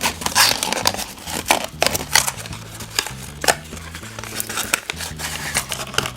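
Crinkling, rustling and tearing of a surprise egg's wrapper as it is handled and unwrapped, in many irregular crackles, over soft background music.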